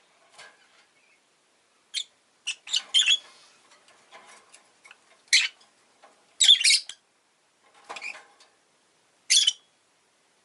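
Rosy-faced lovebird chirping in short, sharp, high-pitched calls a second or two apart, with quiet gaps between them.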